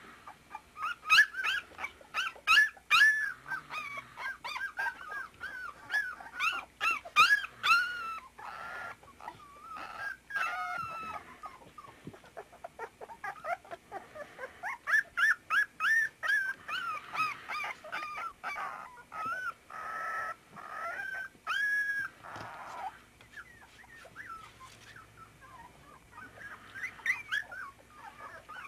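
Young puppies whimpering and yelping in rapid strings of short, high-pitched cries. The cries come in two long bouts with a brief lull in the middle, and a few more near the end.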